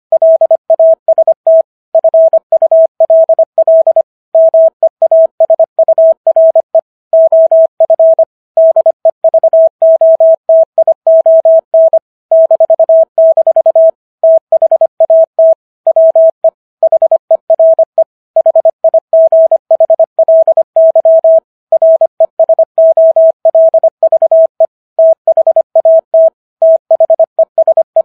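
Morse code sent at 25 words per minute: a single steady tone keyed on and off in quick dits and dahs with short gaps between letters and words, spelling out the Gettysburg Address.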